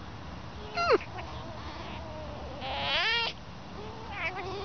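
Red fox making high squeaky calls: a short sharp call that falls steeply in pitch about a second in, a faint thin whine, then a longer call that rises in pitch near three seconds, and a short wavering call near the end.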